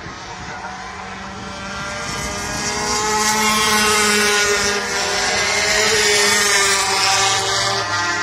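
Several 250cc two-stroke racing motorcycles pass at speed. Their high engine notes grow louder about two seconds in and stay loud through the pass, easing slightly near the end.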